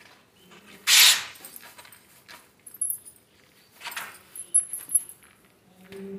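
A woolen slipper being pulled onto a foot and adjusted by hand: fabric rustling and scuffing in a few short bursts, the loudest about a second in, with faint high jingling in between.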